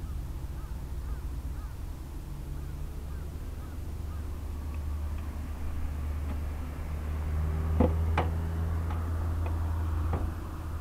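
A steady low mechanical hum, with a few sharp clicks and knocks about eight seconds in and again near ten seconds as the helmet is handled.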